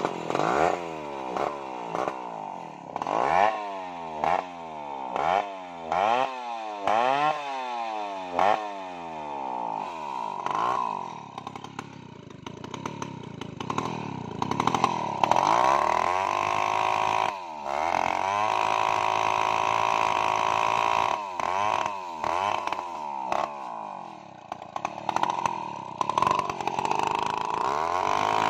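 Stihl 070 two-stroke chainsaw revved up and down repeatedly, about once a second, then held at high revs as its long bar cuts into a large log, the engine note dipping now and then under load.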